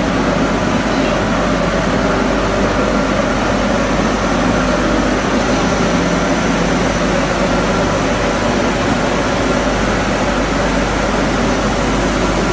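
Shot blasting machine running continuously as steel fire extinguisher cylinders pass through it: a loud, steady industrial din with a constant hum under it.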